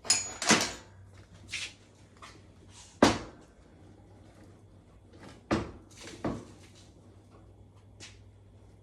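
Knocks and clanks from working on a Dodge M37 windshield frame: a quick pair at the start, a sharp one about three seconds in, two more a little after five seconds, and a light one near the end.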